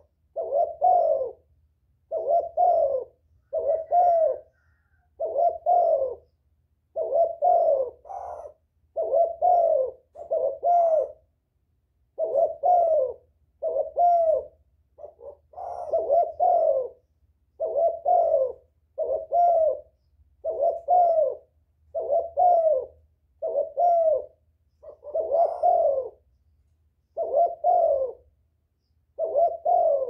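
Caged decoy spotted dove (cu gáy) cooing: its phrased coo call repeats steadily about once a second, with a few short breaks.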